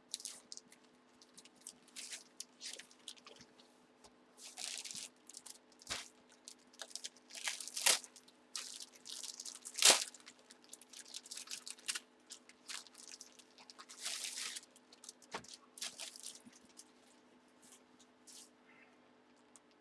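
Plastic packaging crinkling, rustling and tearing in irregular handfuls as items are unwrapped by hand, with two sharper snaps about 8 and 10 seconds in.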